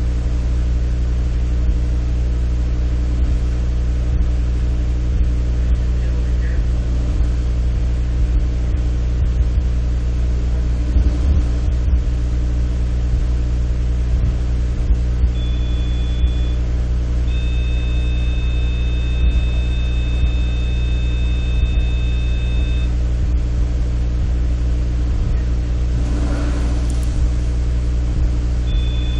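Steady low electrical hum with a ladder of even overtones, heard through a security camera's audio feed. Past the middle, a thin high steady electronic tone sounds twice, once for about a second and then for about five seconds, and it returns near the end.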